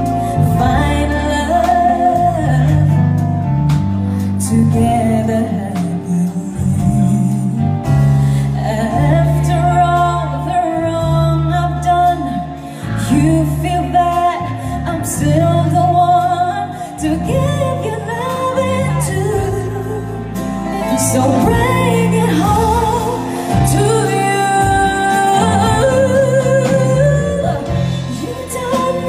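Live concert recording of a female singer performing a ballad with a live band behind her, the vocal line sliding and bending over steady bass.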